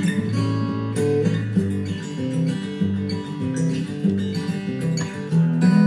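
Instrumental background music on acoustic guitar, with plucked and strummed chords over a steady bass line.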